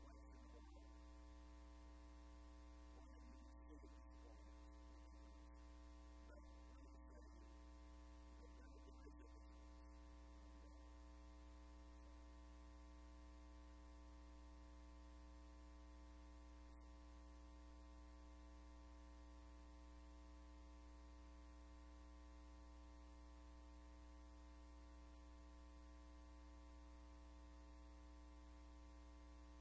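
Near silence with a steady, low electrical mains hum. Faint, indistinct sounds come and go during the first ten seconds.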